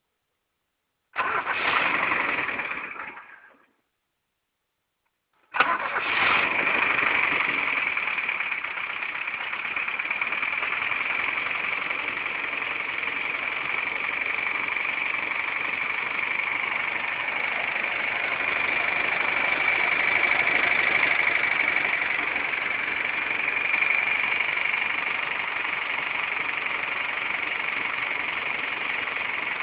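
Car engine being started: a first burst about a second in that dies away after two seconds, then a second start about five and a half seconds in, after which the engine runs steadily. The owner records it for a knock in the engine.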